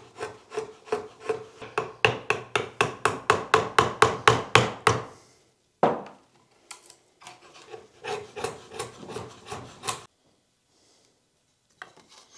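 Modified Dozuki Japanese backsaw cutting wood in quick, short, even strokes. It stops about five seconds in, there is a single knock, then the sawing starts again and stops about ten seconds in.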